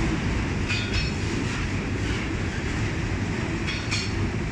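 Freight train's autorack cars rolling past close by: a steady low rumble of steel wheels on rail, with brief high squeals about a second in and again near the end.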